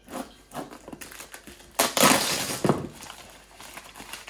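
Plastic packing-slip pouch and packaging being cut with a small knife and pulled free of a cardboard box. It makes short scraping and crinkling sounds, with one loud crackle of plastic about two seconds in.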